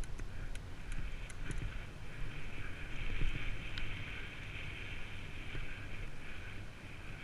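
Downhill mountain bike running fast over a dirt and gravel trail: a steady rumble of tyres and wind buffeting the camera microphone, with scattered sharp clicks and rattles, most of them in the first couple of seconds.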